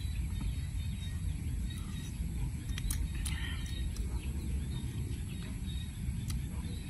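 Outdoor ambience: a steady low rumble with faint bird chirps about three seconds in and a couple of light clicks, one about three seconds in and one near the end.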